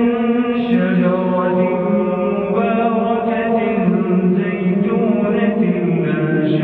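Quran recitation: one voice chanting in long, drawn-out melodic phrases, holding each note and sliding slowly from pitch to pitch.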